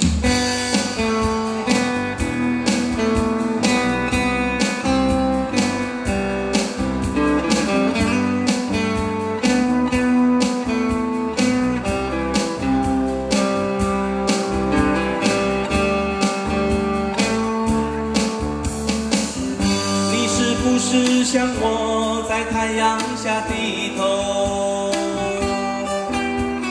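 Live band playing on electric guitars over a steady drum beat.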